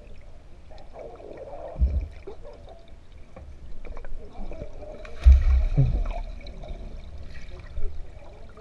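Muffled pool water heard with the microphone underwater: a steady low sloshing rumble with a few dull thumps, the loudest about five seconds in.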